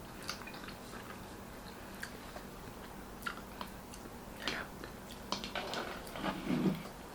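Close-up eating sounds: wet chewing and mouth smacks with scattered small clicks, busier in the second half. Near the end comes a short low hum of the voice.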